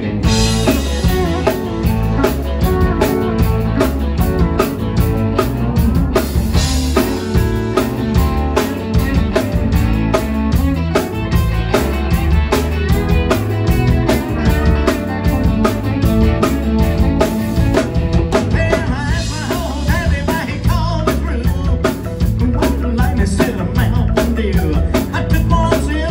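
Live country rock band playing an uptempo number on electric guitars, bass, drum kit and steel guitar, the full band coming in suddenly at the start.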